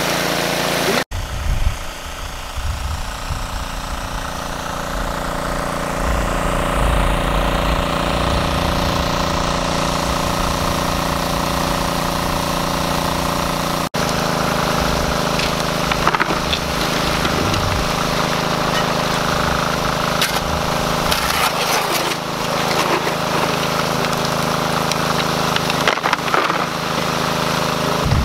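Small gas-powered water pump engine running steadily, with water rushing out of the spray bar into a gold sluice box. In the later part, a shovel scrapes and dumps gravel and rocks into the sluice hopper.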